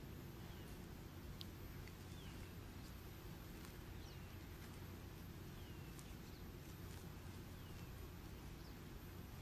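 Faint steady low hum under a light hiss, with short high falling chirps every second or so.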